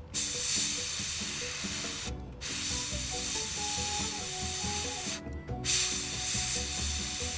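Gravity-feed airbrush hissing as it sprays acrylic paint in three passes, with brief stops about two and five seconds in. Soft background music plays underneath.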